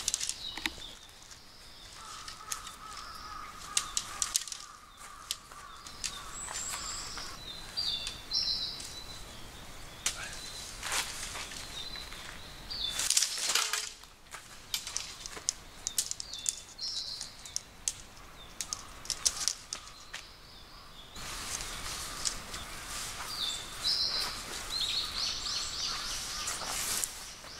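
An MSR Storm King tent being pitched: the tent fabric rustles and flaps, with scattered clicks and knocks from the tent poles, while small birds chirp now and then.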